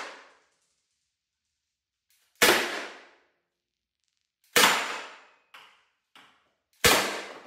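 Byrna SD XL CO2-powered launcher firing kinetic plastic projectiles: three sharp shots about two seconds apart, each fading over about half a second, with two fainter knocks between the second and third shots.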